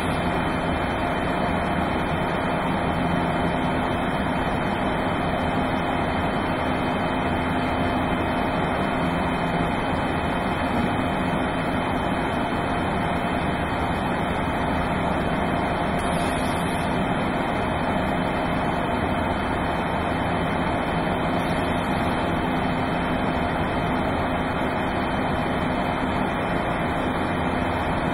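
Steady rushing noise of cleanroom ventilation and filtered air handling, with a few faint steady hum tones from the equipment.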